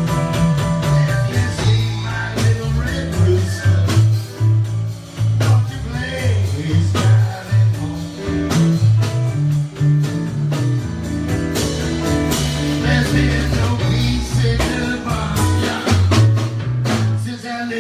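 Blues band playing live: guitar over a stepping bass line, with steady drum hits.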